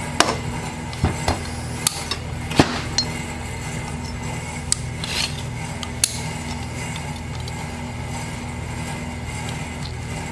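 Locking vise grips clicking and clinking as they are clamped tight onto a broken-off steel bolt stud in an aluminum engine cylinder head and worked by hand: a handful of sharp metal clicks in the first six seconds, over a steady low hum.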